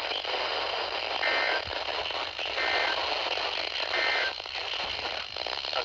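Emergency Alert System end-of-message data bursts: three short two-tone digital chirps, about 1.4 s apart, over steady radio static.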